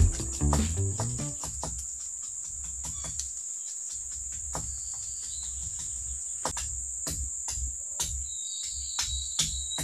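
Steady high-pitched drone of forest insects, with scattered faint clicks and a low pulsing underneath.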